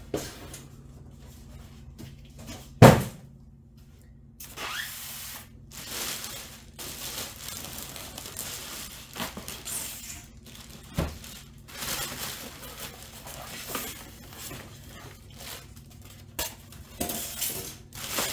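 Clear plastic bag around a printer crinkling and rustling in irregular bursts as it is handled and pulled at. A single sharp knock about three seconds in is the loudest sound, and there is a smaller thump around eleven seconds.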